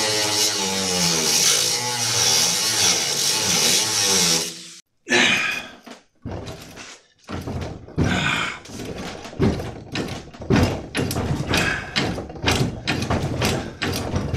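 Angle grinder cutting into steel, its whine wavering under load, stopping about four and a half seconds in. Then a string of heavy metal thunks, roughly two a second, as a long pipe lever is wrenched back and forth against the saw frame to break a seized part loose.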